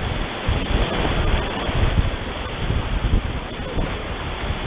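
Whitewater rapids rushing and churning around an inflatable tandem kayak, with low gusty buffeting on the microphone.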